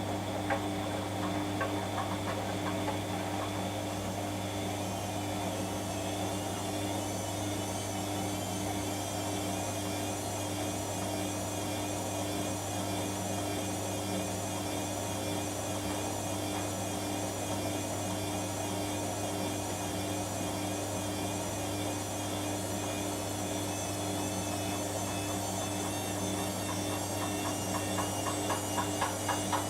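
Washing machine running with a steady motor hum and a faint higher whine. Near the end a regular thumping at about two beats a second sets in.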